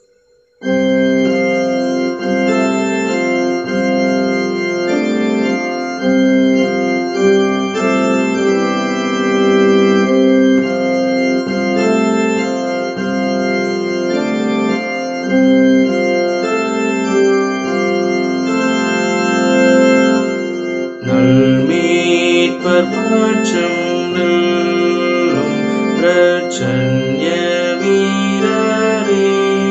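Organ playing a hymn tune in held chords. About two-thirds of the way through, a man's voice joins in singing the hymn.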